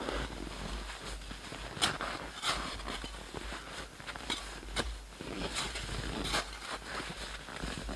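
Rustling of a jacket and backpack as gear is handled in the snow, with scattered sharp clicks and knocks.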